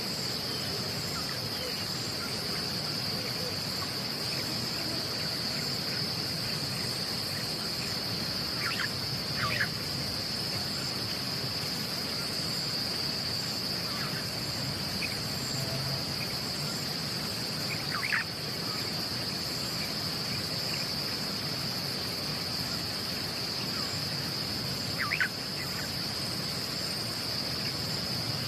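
Steady, high-pitched insect chorus running without a break. A few short, sharp calls cut in over it, about 9, 18 and 25 seconds in.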